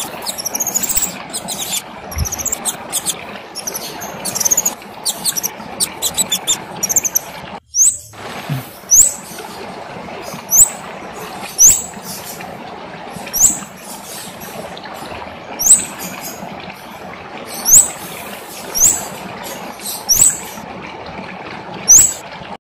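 Kemade songbird singing: a fast, high chattering twitter for about seven seconds, then, after a brief break, a series of loud, sharp, rising chirps about once a second over a steady background hiss.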